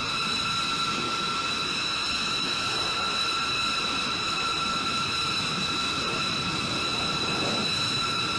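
B-2 Spirit's turbofan engines running at ground idle: a steady high whine of several pitches over a constant rushing noise.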